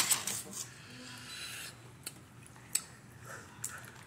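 Boiled crawfish shells being cracked and peeled by hand: a quick run of sharp crackles and clicks at the start, a rough rustling stretch, then a few single snaps.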